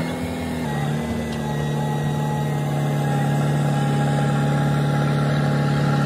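JCB backhoe loader's diesel engine running steadily while the backhoe arm works, its note dropping slightly about a second in.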